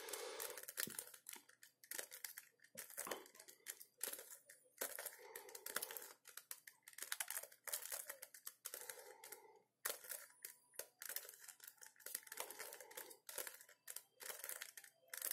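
Plastic 3x3 Rubik's cube being turned by hand, its layers clicking and rasping in quick, irregular runs of turns as the same move sequence is repeated to bring a piece into place.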